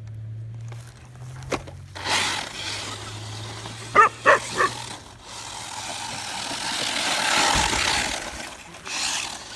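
RC car driving fast over grass, a rushing noise that swells about two seconds in and again, louder, a few seconds later. A dog barks three times in quick succession about four seconds in.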